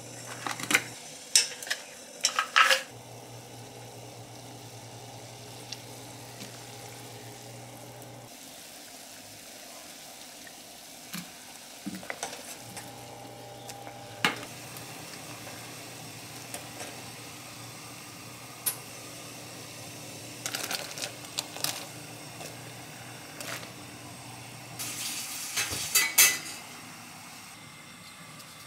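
Pork ribs sizzling on a table grill, with tongs and dishes clinking and clattering in short clusters near the start, around halfway and near the end, over a steady low hum.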